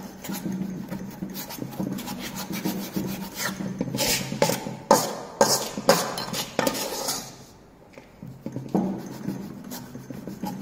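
Small steel trowel scraping over fresh cement paste in a Vicat mould, levelling off the top: a run of short rasping strokes, with a brief pause about three-quarters of the way through.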